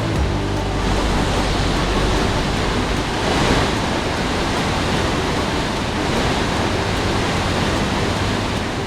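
Loud, steady rush of falling, spraying water, swelling slightly about three and a half seconds in.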